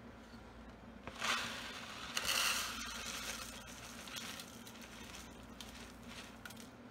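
Dry uncooked rice being measured out into a cup, the grains pouring and rattling in two louder bursts about one and two seconds in, then quieter shuffling.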